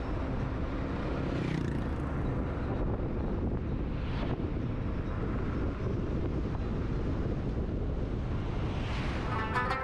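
A car driving at speed: steady road and engine rumble with wind noise, and three brief whooshes that swell and fade. Plucked-string music comes in near the end.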